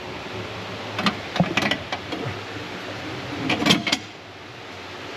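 Hand tools working metal parts during a gearbox install: short runs of clicks and clanks about a second in and again louder just before four seconds, over a steady hiss.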